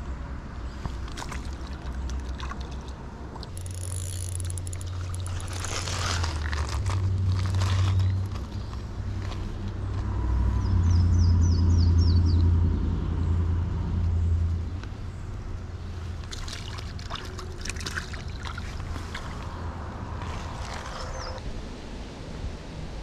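Close handling and rustling of hands and a nylon jacket while a small sunfish is held and unhooked, over a low rumble that swells through the middle. A bird gives a quick series of high chirps about halfway through.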